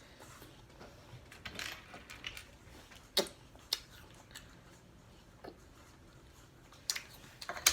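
Plastic LEGO pieces being handled: a handful of sharp clicks and clacks spread out, with quiet between them.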